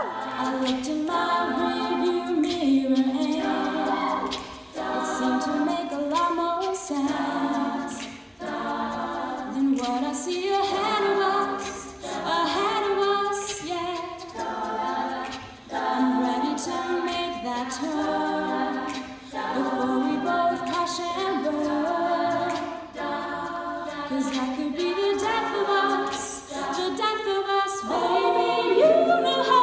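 Women's a cappella group singing: a lead voice at the microphone over sung backing parts, no instruments.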